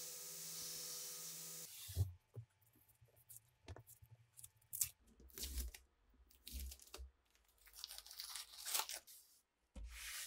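A sanding machine runs steadily for under two seconds with a low hum, then stops. After that, masking tape is peeled off a knife blade in a series of irregular tearing and crinkling rips.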